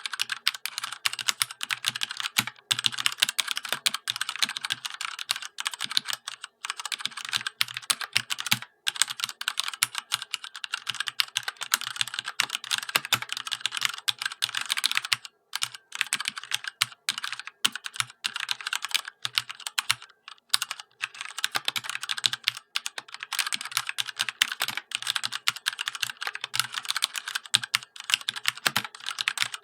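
Fast, continuous typing on a Ducky One 2 Rosa mechanical keyboard with Cherry MX Red linear switches and double-shot PBT keycaps, with a few brief pauses.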